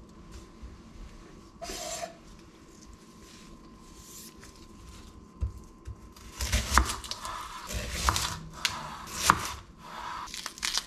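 A chef's knife slicing through an onion on a bamboo cutting board: a run of uneven cuts, each ending in a sharp tap or scrape of the blade on the wood, starting about halfway through.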